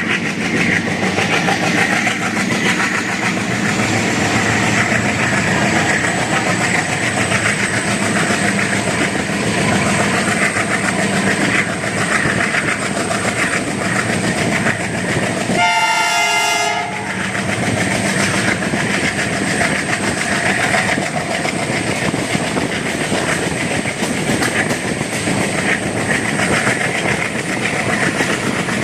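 WDP-3A locomotive's 16-cylinder ALCO diesel engine chugging hard as it accelerates a passenger train, over wheels clattering on the rails, with a thin high whine that climbs slowly in pitch. About halfway through, the locomotive's horn sounds once for just over a second, a chord of several tones.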